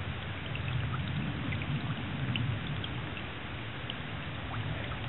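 Wood frog chorus: low, duck-like clucking, strongest in the first half, over a steady hiss, with scattered faint short high chirps.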